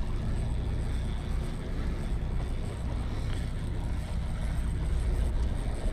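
Steady low rumble of the fishing boat's engine running, with wind on the microphone.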